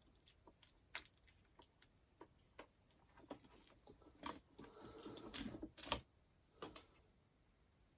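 Light clicks and knocks of a mains plug and small tools being handled, with a short stretch of scraping and rustling about four to six seconds in, as the plug is opened to check its fuse.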